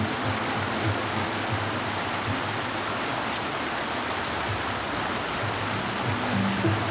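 Small mountain stream rushing over rocks: a steady hiss of running water. Background music comes back in near the end.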